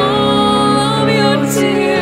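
Background music with slow, sustained notes.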